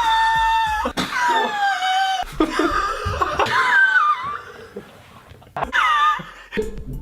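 High-pitched wheezing laughter: a run of squeaky, whistling wheeze-laughs, some held and some falling or wavering in pitch, with a short lull before one last wheeze near the end.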